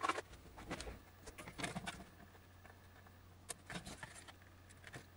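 Faint, scattered clicks and knocks of a computer circuit board being handled and lifted off its plastic case.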